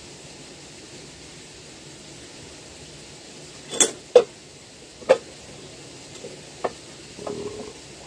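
A handful of sharp snaps and clicks, two close together about four seconds in and two more singly after, over a steady background hiss, with a short low tone near the end.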